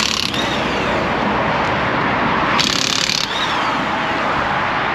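Ingersoll Rand 20 V cordless half-inch impact wrench hammering on lug nuts in two short bursts. One ends just after the start and the other comes about two and a half seconds in; each winds down with a falling whine. Steady highway traffic rushes underneath.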